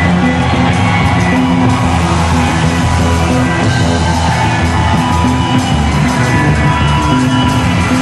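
Rock band playing loud, steady music with electric guitars and a drum kit.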